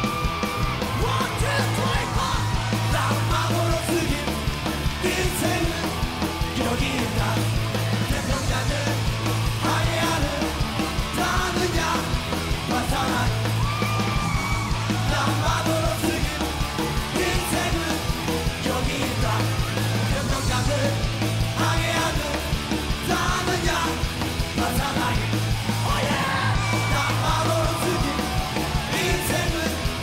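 Punk rock band playing live: bass guitar, guitar and drums under a lead singer shouting and singing Korean lyrics into a microphone.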